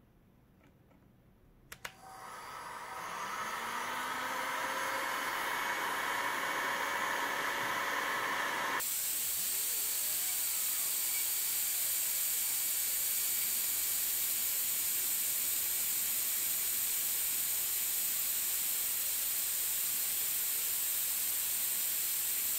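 Bosch Professional GHG 23-66 heat gun switched on with a click about two seconds in, its fan spinning up over a second or two into a steady rush of air at maximum airflow. About nine seconds in the sound changes abruptly to a brighter, even hiss.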